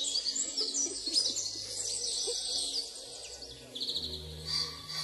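Small songbirds chirping and trilling busily, over soft background music with low held notes.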